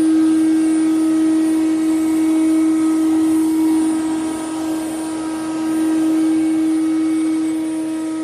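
CNC router spindle running at a steady high speed, a constant hum-like whine with a rush of noise as it carves wood; the level dips briefly about halfway through.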